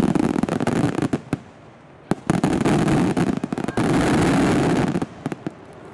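Star mine fireworks barrage: rapid, dense cracks and bangs in two spells. The first spell lasts about a second. After a short lull, a second, louder spell starts about two seconds in and runs about three seconds before dying away near the end.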